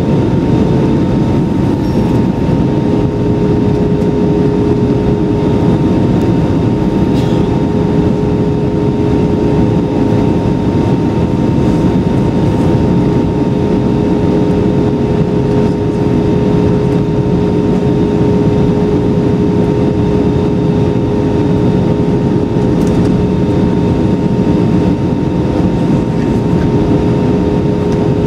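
Cabin noise of an Airbus A320-200 in flight: a steady roar of engines and airflow, with a constant hum and a fainter, higher steady tone running through it.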